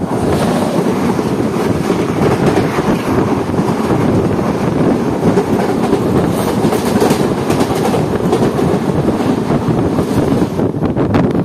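An oncoming Indian Railways train, a WAP-7 electric locomotive and its coaches, passing close alongside on the next track, heard from the open window of a moving train: a sudden loud rush of air and wheel clatter that stays steady as the coaches go by and falls back to wind noise near the end.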